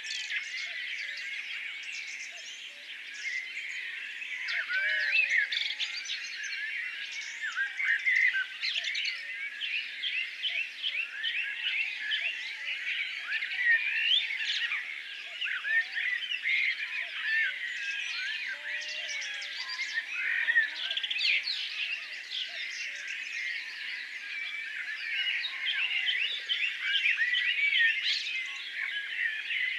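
A dense chorus of many small birds chirping and twittering at once, a steady wash of short overlapping high calls with no pause.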